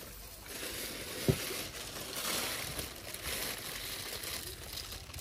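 Plastic carrier bag and blister packaging rustling and crinkling as they are handled, with one short low thump about a second in.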